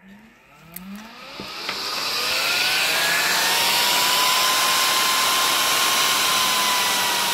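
AVC DBPD0838B2U 12 V, 3.6 A ball-bearing cooling fan spinning up under a PWM speed controller with its knob at the middle setting: a rushing of air and a whine that rises in pitch over the first two or three seconds, then runs steady and loud, the whine dipping slightly near the end.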